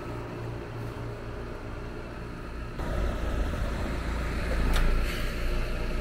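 Trane XR outdoor air-conditioning condensing unit running: a steady hum of its compressor and condenser fan, growing louder about three seconds in. Two light taps near the end.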